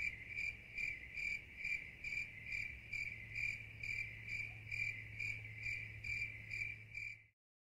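A cricket chirping steadily, about two and a half chirps a second, over a low steady hum; both cut off suddenly near the end.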